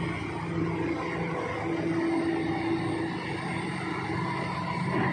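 Diesel engine of heavy tracked earthmoving machinery running steadily at an even pitch.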